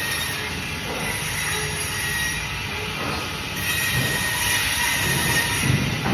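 Band saw running and cutting fish: a steady whine over a hiss, swelling and dipping a little as the blade works through the fish.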